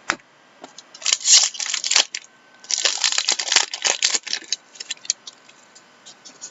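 Trading cards and their packaging being handled: a sharp click, then two spells of dry rustling and scraping about a second long each, with a few light clicks after.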